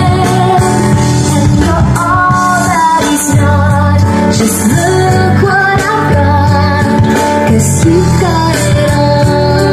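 Music: a song with a singing voice carrying a melody over a steady bass line.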